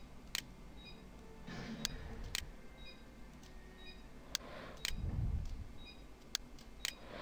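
Computer mouse clicking: about six separate sharp clicks at irregular intervals, with soft noise swells between them.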